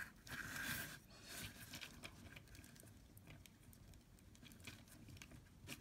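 Faint clicks and rustling of plastic robot-arm parts being handled and fitted together by hand, with the loudest handling noise about half a second in.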